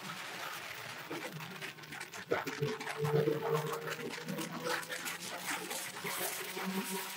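Motorcycle engine running at low, steady revs, a low hum that comes in about two seconds in, with scattered light clicks.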